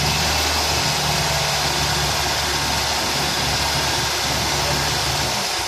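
Toyota VVT-i four-cylinder petrol engine idling steadily with the radiator cap off, running so the coolant circulates while the radiator is topped up. The low engine hum drops out shortly before the end.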